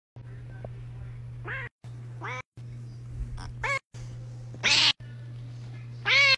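A tabby cat giving about five short meows, each rising then falling in pitch, the last two louder, over a steady low hum that cuts out for a moment several times.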